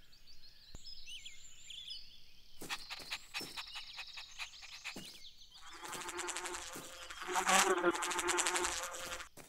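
Cartoon bee buzzing, starting about six seconds in and growing louder before it stops near the end. Before it, faint high chirps and a run of quick ticks.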